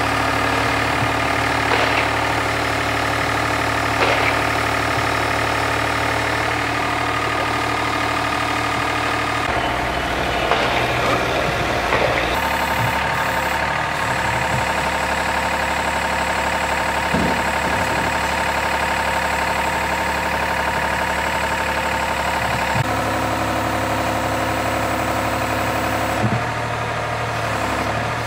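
Engine of a track-mounted cable percussive drilling rig running steadily, driving its hydraulic system, with sharp knocks about every two seconds in the first few seconds and a few scattered knocks later.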